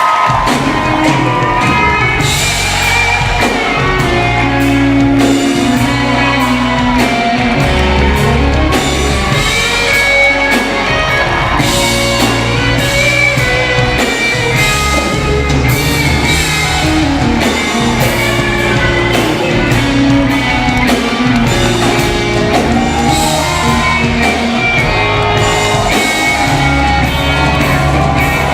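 Live band playing rock music, with electric guitar, bass and drums keeping a steady beat, and a voice singing over it.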